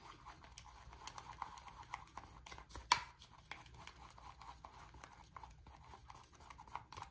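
Tint brush stirring permanent hair colour and developer in a plastic tint bowl: faint, irregular soft scrapes and clicks, with one sharper tap about three seconds in.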